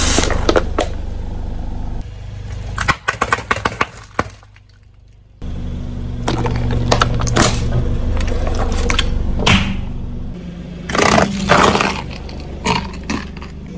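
A car's tyre rolling over and crushing crunchy objects: several bursts of cracking and snapping over the steady low hum of the car's engine. The hum drops out briefly about four seconds in and comes back suddenly.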